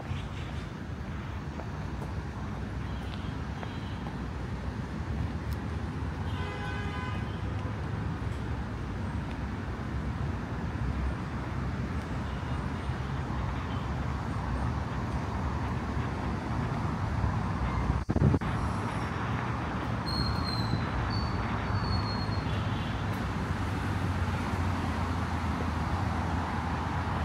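Steady road traffic noise from passing cars. A short horn toot comes about six seconds in, a single sharp knock later on, and a few brief high-pitched squeaks after it.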